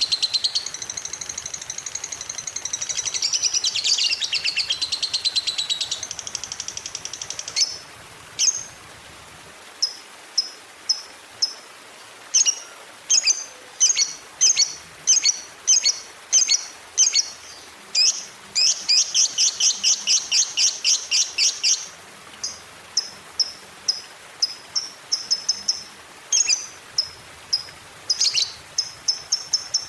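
Lovebird singing: a long rapid chattering trill ('ngekek') for about the first seven seconds, then sharp high chirps, singly and in quick runs.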